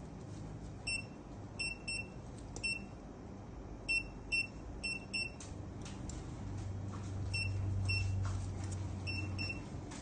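Short high beeps from a veterinary patient monitor, whose pulse-oximeter probe is clipped to an anaesthetised cat's tongue. They come singly and in quick pairs at uneven intervals, with faint clicks of steel surgical instruments. A low hum grows louder past the middle and fades near the end.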